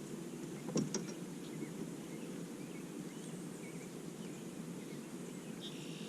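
Quiet open-air lake ambience: a steady low hush with faint bird chirps, and two sharp clicks about a second in.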